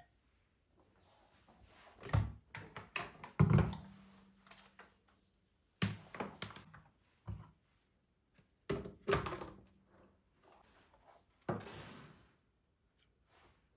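A series of knocks and thuds of household objects being handled and set down in a small room, about six separate impacts with softer handling noise between them. The loudest is about three and a half seconds in.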